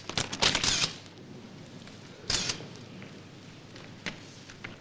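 Press photographers' camera shutters clicking and film winding in short, sharp bursts: a quick cluster in the first second, another about two seconds in, and a fainter one near the end, over a low hiss.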